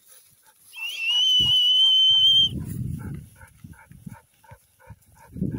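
A stock handler's single long whistle to a working dog, held steady at one high pitch for nearly two seconds after a short upward flick at its start. It is followed by a low, rough rumble.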